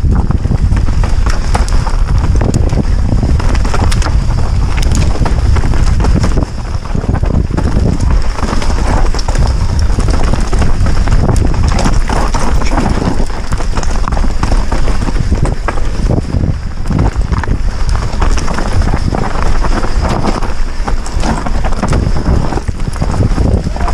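Orbea Rallon mountain bike descending a rough forest trail at speed: tyres crunching over rocks and roots, the bike rattling with many sharp knocks, and a heavy wind rumble on the helmet-mounted microphone.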